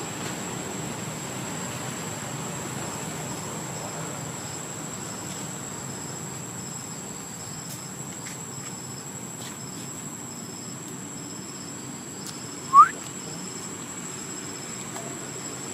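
Insects droning steadily at a high pitch, with a second insect trilling in short, evenly repeated pulses. About 13 seconds in, one short, sharp rising chirp stands out as the loudest sound.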